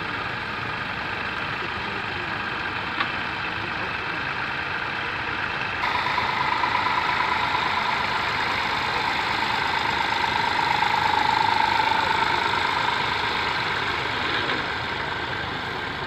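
Small vintage Massey Ferguson tractor engine running steadily while pulling a mounted plough and turning on the headland. About six seconds in the sound jumps louder, with a steady hum added on top.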